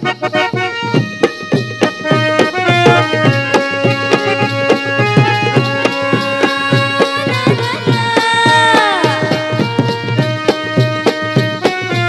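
Instrumental Lavani dance music: a dholki barrel drum playing a quick, dense rhythm under a sustained melody line, with some sliding notes about two-thirds of the way in.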